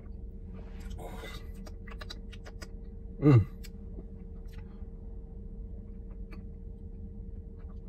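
A man sipping from a small glass shot bottle, with a slurp about a second in and small clicks of lips and bottle, then a short loud grunt falling in pitch just after three seconds: his reaction to the strong taste. A steady hum runs underneath.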